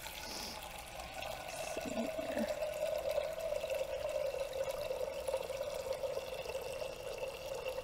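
Tap water from a kitchen faucet running into a stainless steel saucepan, filling it. The stream grows louder about two seconds in and then holds steady as the pan fills.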